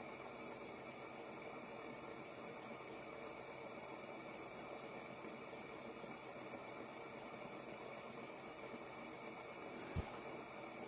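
Faint steady whir over hiss from a fidget spinner turning freely on its bearing, two minutes into a long spin. A brief low thump sounds near the end.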